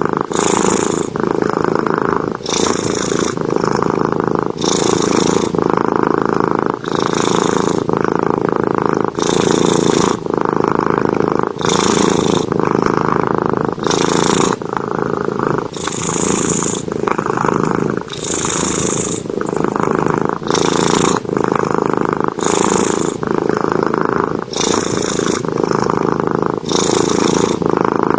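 House cat snoring very loudly in its sleep, a steady cycle of breaths about one every two seconds.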